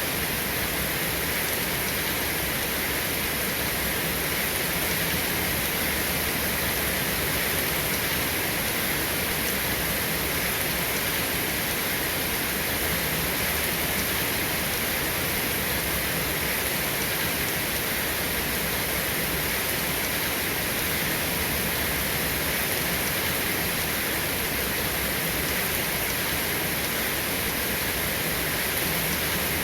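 Steady rain falling, an even hiss without pauses or thunder.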